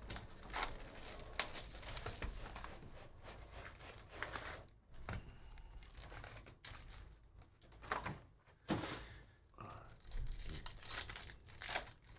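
Trading-card hobby box being torn open by hand, then its foil card packs handled and ripped open: irregular tearing and crinkling of cardboard and foil wrappers.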